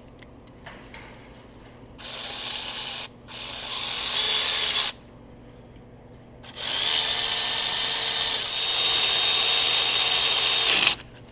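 Power driver spinning the fuel rail bolts back in: three runs, a short one about two seconds in, a slightly longer one right after, and a long run of about four seconds from the middle to near the end.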